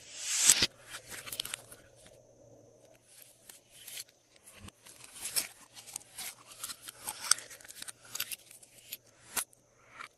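Glossy slime being worked by hand, making many irregular sticky clicks and crackles, with a louder swell about half a second in.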